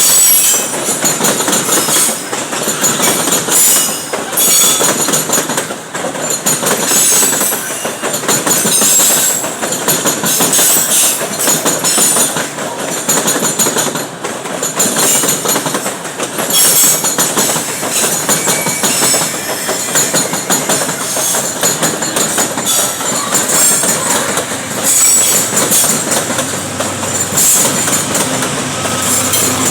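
Loaded freight wagons rolling past, wheels clattering over the rail joints, with intermittent high-pitched wheel squeal.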